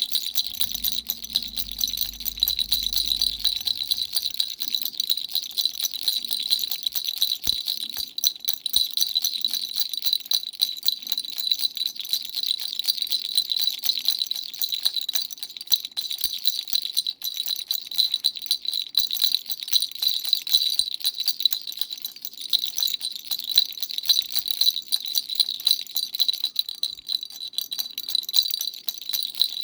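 Dumbbell-shaped baby rattle being shaken continuously: a dense, rapid rattling with a steady high ring.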